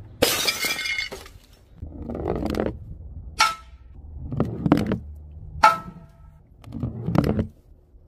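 A sheet of glass smashes on paving tiles with a crash of tinkling shards lasting about a second. Then a heavy ball is dropped repeatedly onto an old CRT television's glass screen, giving several hard knocks, two of them ringing briefly, between duller thuds.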